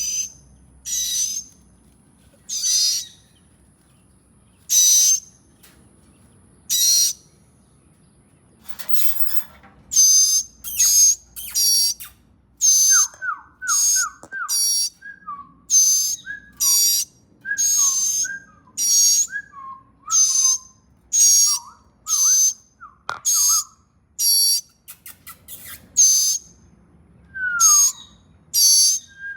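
Baby birds calling over and over with shrill, high-pitched cries, about one a second at first and then coming faster, joined partway through by short, lower, falling chirps.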